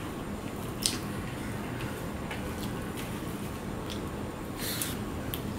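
Fingers mixing rice with curry on a steel plate, with soft wet squishing. A few sharp clicks break through, one about a second in and a longer smack and click near the end as a handful is eaten.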